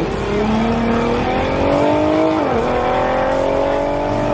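Car engine running hard under acceleration, its pitch climbing steadily, dropping sharply about two and a half seconds in, then climbing again.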